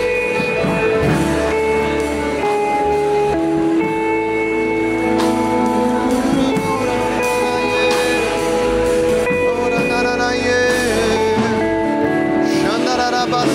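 Live worship band playing slow, soft background music: long sustained keyboard chords with guitar.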